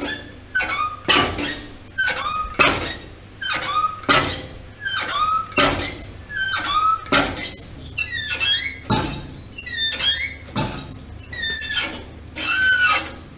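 Steel hinges of an M3 Grant tank's side entry door squeaking as the heavy door is swung back and forth again and again, giving about one squeal a second, each gliding up or down in pitch. The hinges, once seized, have just been freed by heating and are still a little firm and dry, needing oil.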